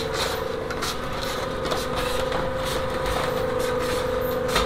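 Double-spiral ribbon mixer driven by a 5 hp three-phase gear motor, running under a 350 kg load of wet sand and soil. A steady motor hum over heavy churning noise with irregular knocks, loud because the rough sand and soil carry debris and gravel.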